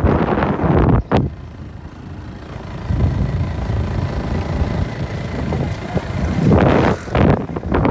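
Ride noise from a moving vehicle: wind buffeting the microphone over a low engine hum. The wind drops sharply about a second in, leaving the engine more audible, then builds again and is strongest near the end.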